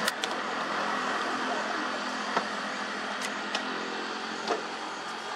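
Motor vehicle engine idling with a steady hum, and a few sharp clicks and knocks over it.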